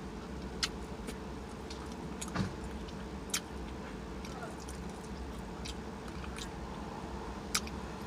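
Close-miked mouth sounds of a person chewing food: a few scattered sharp, wet smacks and clicks over a steady low hum.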